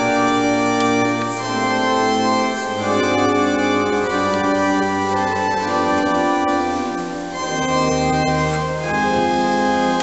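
Church pipe organ playing slow, sustained chords that change every second or so over a held bass.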